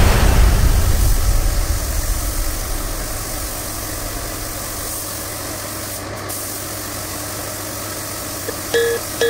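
A low, steady engine-like rumble, loudest at the start and easing off over the first few seconds into a constant hum. Short plucked music notes begin near the end.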